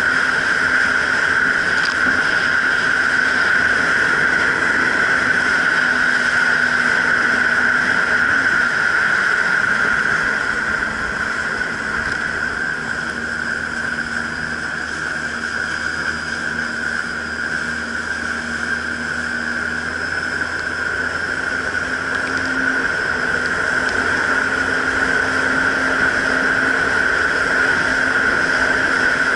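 Jet ski engine and jet pump running steadily while under way, with a strong high whine over the engine note. The engine eases off for several seconds around the middle, then picks back up.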